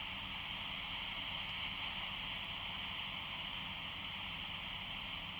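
Baofeng UV-82L handheld radio's speaker giving a steady hiss of FM static.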